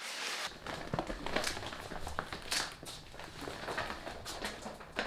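A large plastic shopping bag being handled, rustling and crinkling with scattered crackles and small knocks, starting about half a second in.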